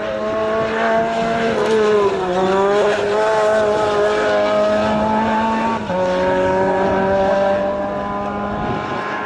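Renault Clio race car's engine running hard under load: the revs dip and climb again about two seconds in, then drop sharply with a gear change about six seconds in.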